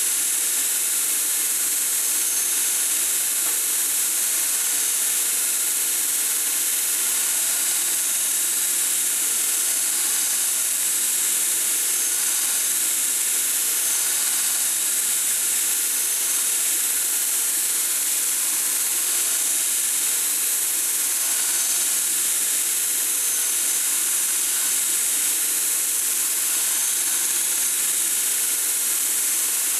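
Belt grinder running steadily with a high hiss as a steel graver blank is ground against the abrasive belt, throwing sparks.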